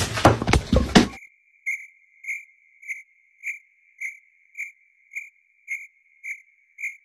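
About a second of loud clattering and knocks, cut off abruptly. Then a steady high-pitched electronic tone that swells in even pulses just under twice a second, over dead silence.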